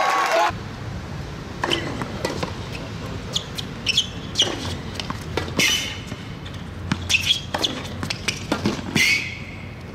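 Singles tennis rally on a hard court: sharp racket-on-ball strikes, players' sneakers squeaking, and short player grunts. A louder burst of crowd noise cuts off about half a second in.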